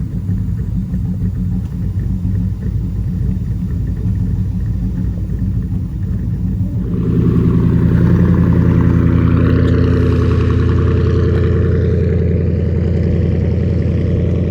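Ford Crown Victoria V8 engine running with a low rumble; about seven seconds in the revs come up and hold steady, louder and higher.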